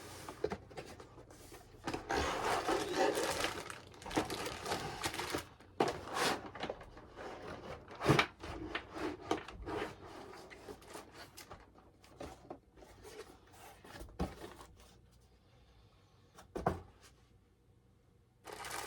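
Packaging and coiled LED light strings being handled: plastic and cardboard rustling, with several sharp clicks and knocks, the loudest about eight seconds in, then quieter toward the end.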